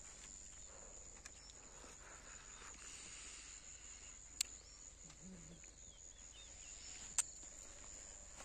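Faint, steady high-pitched insect chirring, broken by two sharp clicks about three seconds apart.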